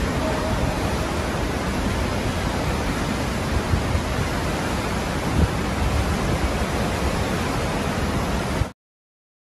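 Steady roar of hurricane wind and rushing floodwater, with wind buffeting the microphone; it stops abruptly near the end.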